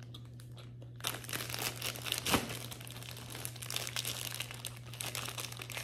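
Packaging crinkling and rustling in quick, irregular crackles, starting about a second in, as Hershey chocolate bars are unwrapped. A steady low hum runs underneath.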